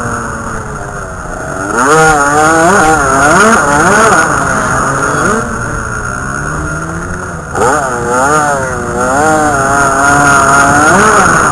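Dirt bike engine revving up and down as it is ridden over rough ground, heard from on board. The revs are lower at first, climb about two seconds in with repeated rises and falls, sag for a couple of seconds past the middle, then climb sharply again.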